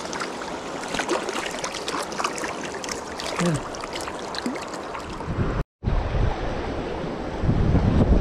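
Rushing river water with small, irregular splashes from a small hooked trout thrashing at the surface close by. After a brief cut about two-thirds of the way through, the river goes on with wind rumbling on the microphone.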